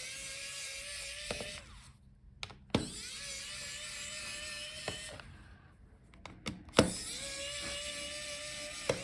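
Electric screwdriver backing out laptop hinge screws: three runs of a steady motor whine, each about two seconds long, with sharp clicks in the short gaps between them.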